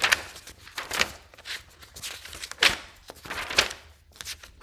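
Paper handouts rustling as sheets are handled and shifted, in a handful of short swishes about a second apart.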